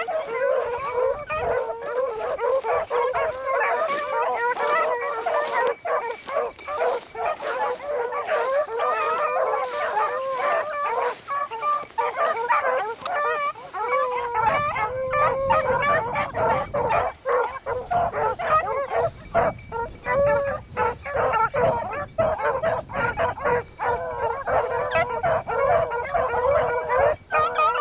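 A pack of beagles baying together, many overlapping, wavering howls without let-up, as the hounds run a rabbit's scent trail.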